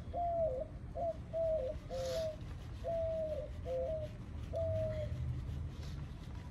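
A dove cooing: a run of about eight short coos, alternating between a higher and a lower pitch, ending about five seconds in. A brief rustle about two seconds in.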